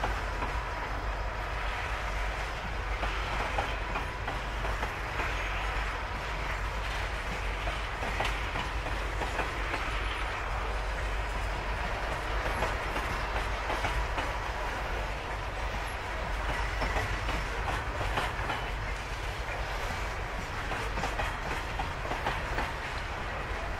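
Freight train of hopper wagons rolling past steadily, with a continuous rolling noise and the clickety-clack of wheels over the rail.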